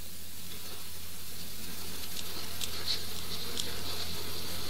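Steady hiss of room tone and recording noise with a low hum underneath, and a few faint ticks near the middle.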